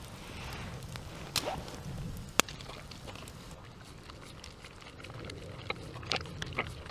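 A few sharp clicks, the loudest a single snap about two and a half seconds in, then a dog eating from a metal camp pot, licking and lapping with small clicks against the pot near the end.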